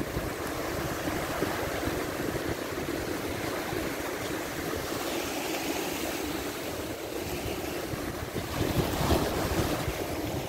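Red Sea waves washing against a rocky shoreline, with strong wind rumbling on the microphone, gusting a little louder near the end.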